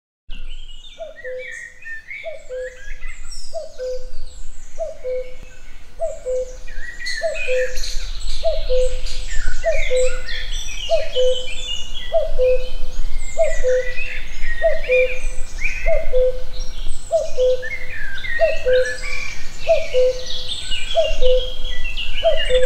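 Woodland bird chorus: many songbirds singing and chirping over one another. Under them a low two-note call repeats evenly, about once every second and a quarter. The chorus fades in at the start and grows fuller over the first several seconds.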